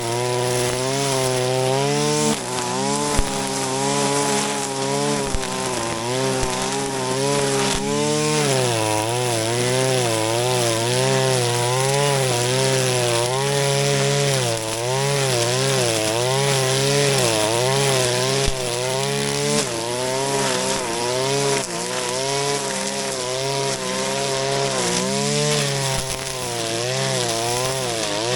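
Shindaiwa RK3026-PT 25.4 cc two-stroke brush cutter running hard while cutting grass, its engine pitch wavering and dipping several times under load. A few short sharp ticks sound over it.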